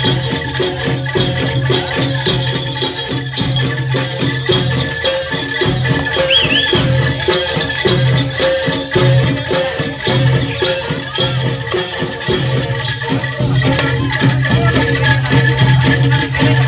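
Jaranan (kuda lumping) gamelan music playing loud and continuous: fast, dense percussion with a jingling rattle over steady ringing metal tones and a sustained low tone.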